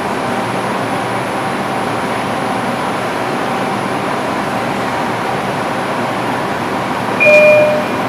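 Steady rumbling din of a New York subway platform. Near the end a loud two-note chime sounds, a high note falling to a lower one.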